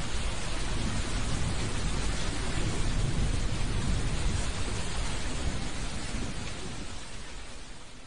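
Thunderstorm: steady heavy rain hiss with a low rolling rumble of thunder that swells a couple of seconds in, then the whole sound fades out near the end.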